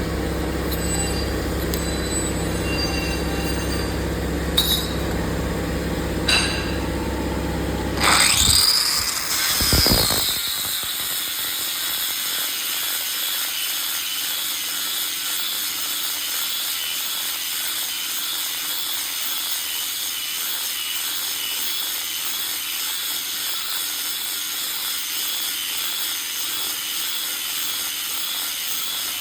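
Angle grinder with a ceramic-grain fibre disc grinding out spot welds in steel, running steadily. About eight seconds in there is a brief shrill squeal that rises and falls, after which the low hum drops away and a steady high grinding hiss remains.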